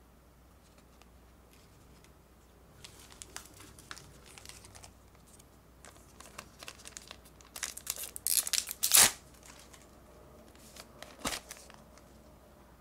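A Pokémon card promo pack's wrapper crinkling in the hands and being torn open, with the loudest burst of tearing about nine seconds in and a shorter crinkle near the end.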